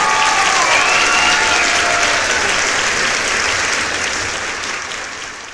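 A crowd applauding, with a few cheering voices over the clapping at first; the applause fades away near the end.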